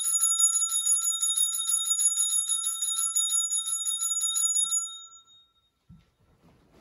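Altar bell rung rapidly and continuously during the elevation of the chalice at the consecration, with quick repeated strokes that stop about five seconds in and ring out. A faint knock follows near the end as the chalice is set down on the altar.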